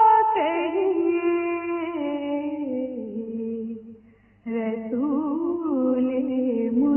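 A woman singing a naat unaccompanied, holding long notes that step and slide downward in pitch. She breaks off briefly a little after halfway, then comes back in with ornamented, wavering turns on a sustained note.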